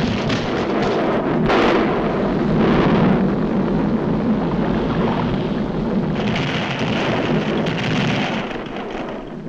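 Cartoon sound effects of a volcano erupting: a continuous rumble and crash of blasted rock, swelling about a second and a half in, with a brighter hissing layer joining about six seconds in.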